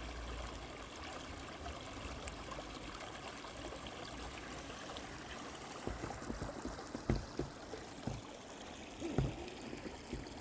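Small winter stream running and trickling steadily. In the second half there are several short, dull low thumps.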